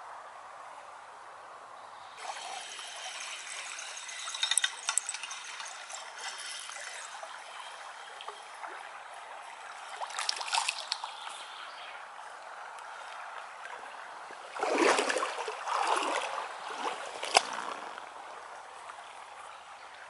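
A hooked chub splashing in a shallow river as it is played and landed, in several bursts of splashing about four, ten and fifteen seconds in, the longest and loudest near the end, over the steady trickle of flowing water.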